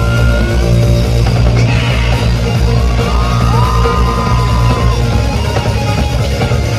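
Live rock band playing loudly with heavy distorted guitars and drums, a guitar bending notes over it, heard as it sounds in a large hall.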